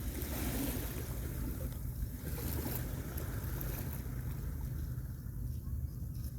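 Gentle sea waves washing onto a beach, their hiss swelling about a second in and again near the middle, over a steady low rumble of wind on the microphone.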